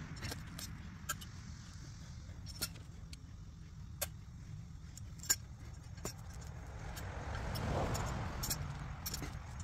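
Steady rumble of road traffic, with one vehicle passing that swells and fades about eight seconds in. Scattered sharp metallic clinks come from a long-handled metal garden tool working the turf.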